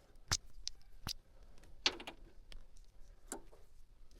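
Handling noise of work on furnace wiring: a few sharp, separate clicks and knocks, about four in all, as meter leads and wires are handled.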